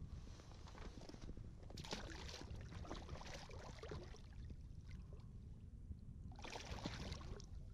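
Water splashing and sloshing beside a kayak as a lake trout, held in a lip gripper, is lowered over the side and held in the water for release. There are three short bursts of splashing, the last and loudest near the end.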